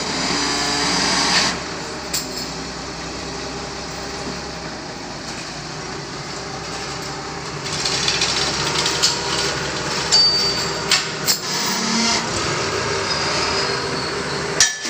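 TCM diesel forklift engine running steadily while it lifts a heavy machine frame. From about halfway, sharp metal clanks and knocks from the load and its chains.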